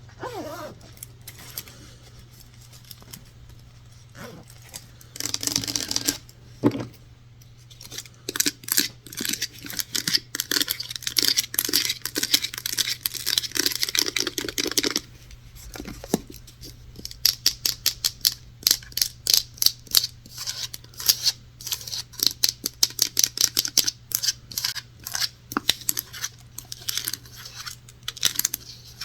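Close-up tapping and scratching on objects, wood among them: bursts of scratching in the first half, then quick runs of light taps several per second. A steady low hum sits underneath.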